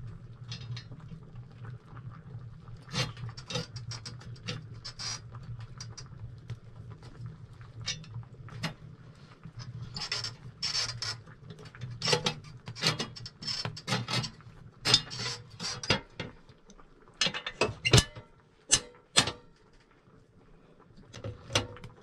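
Irregular metallic clicks, clinks and scrapes as a metal plate is fitted over the air intake at the bottom of a sheet-steel wood stove's door, to cut the draught that makes the stove burn too much wood. A low steady hum lies under the clinks and fades out about three-quarters of the way through.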